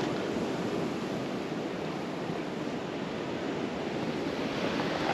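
Ocean surf washing over rocks, a steady, even rush of noise.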